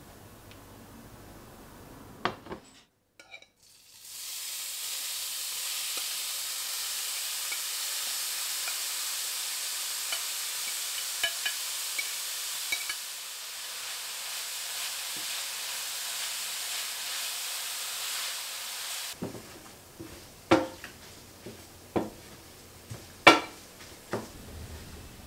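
Ghee sizzling in a stainless steel frying pan with rice frying in it: a steady hiss with small crackles. In the last several seconds a wooden spatula stirs the rice, knocking sharply against the pan several times.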